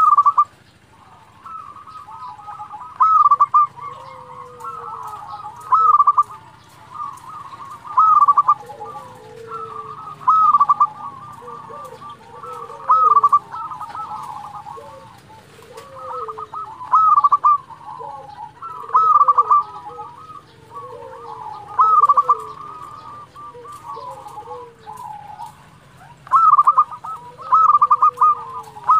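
Zebra dove (perkutut) singing, repeating a short burst of quick cooing notes about every two to three seconds, with quieter cooing between the bursts.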